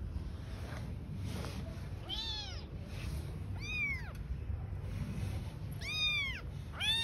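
Young kitten meowing: a series of short, high mews that rise and fall in pitch, a second or two apart, about four in all, the last near the end, over a low steady background rumble.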